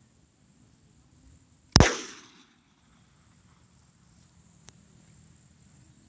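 A single shot from a .32 bore pistol about two seconds in: a sharp crack with a short echoing tail.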